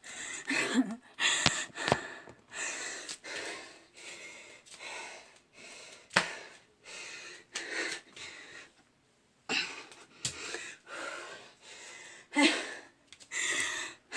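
A person breathing hard and wheezing, out of breath after burpees, with a puff about once a second and a few sharp knocks in between.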